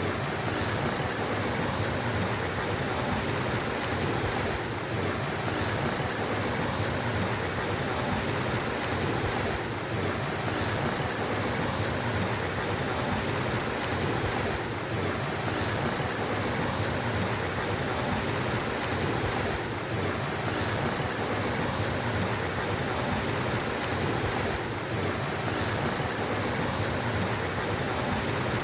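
Water flowing steadily in a stream, an even rushing wash with a slight dip about every five seconds.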